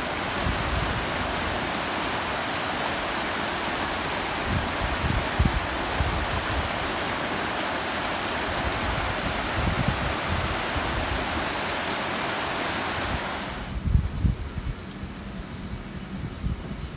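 Shallow river water rushing over rock ledges, a steady rush; about thirteen and a half seconds in it drops away to a much quieter outdoor background.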